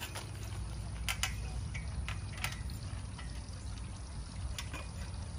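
Wind rumbling on the microphone, with scattered light clicks and gravel crunches as a sectional flagpole is walked upright by hand.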